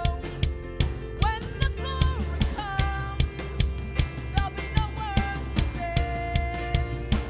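Live gospel worship music: a young woman sings a slow melody into a microphone over a drum kit keeping a steady beat of about two strikes a second, with a sustained low bass underneath.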